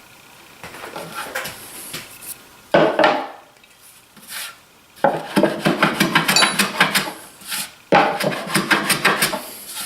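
Hand work on wood with tools: quick rubbing and scraping strokes mixed with clattering of metal and wood. It comes in three loud spells, starting about three, five and eight seconds in.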